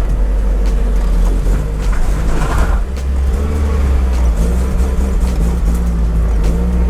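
Nissan 200SX S13's CA18DET turbocharged four-cylinder running at low revs: a steady low rumble whose pitch wavers slightly.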